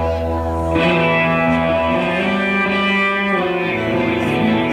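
Live rock band playing, with effects-laden electric guitar holding sustained notes. A low held note drops out a little under a second in.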